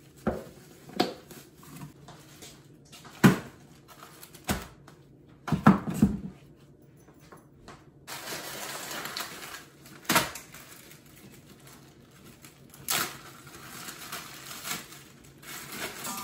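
Kitchen handling sounds: scattered knocks and clatters as vegetables are dropped into an Instant Pot's steel inner pot, with plastic bag rustling in between.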